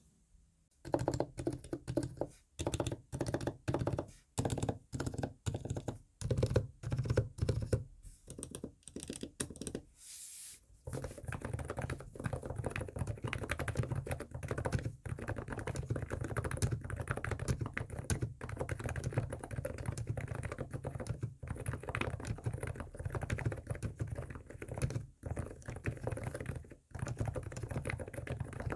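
Typing on an ABKO K935P electrostatic capacitive keyboard with 50 g switches, fully lubricated (Krytox 105 on sliders and springs, Krytox 205g0 on the stabilizers). Keystrokes come in separate short runs for about ten seconds, then a brief hiss, then fast continuous typing.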